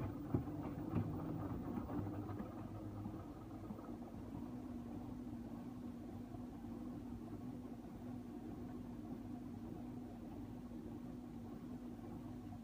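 LG TurboWash front-loading washing machine's direct-drive motor turning the drum for a load-distribution step. For the first couple of seconds the wet laundry tumbles and sloshes with a few thuds. The drum then holds a steady speed with the laundry pinned to its wall, and the motor gives a steady hum.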